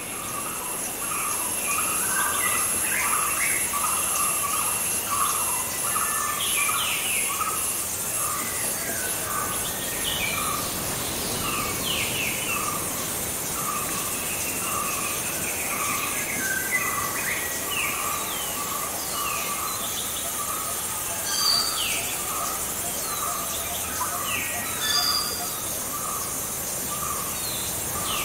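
Nature ambience of birds chirping in short falling notes over a steady high insect drone, with a lower call repeating about twice a second.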